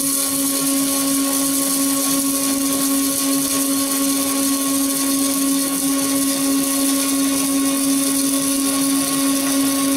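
Stick-welding arc from a Vulcan 4400-AS nickel-chrome-vanadium rod burning steadily, a continuous hiss, as weld is built up on top of a broken stud deep inside a threaded housing to make an extension for pulling it out. The arc cuts off right at the end, over a steady hum.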